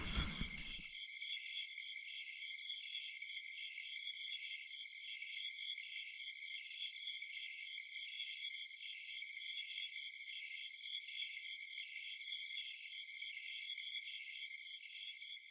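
Night-time crickets chirping in a steady, rhythmically pulsing chorus, high-pitched and thin with no low sounds under it; it fades out at the very end.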